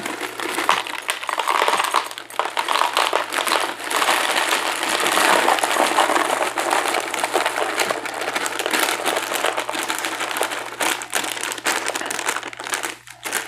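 Plastic bag of Froot Loops crinkling while the cereal is poured out, a dense continuous crackle and rattle of many small pieces.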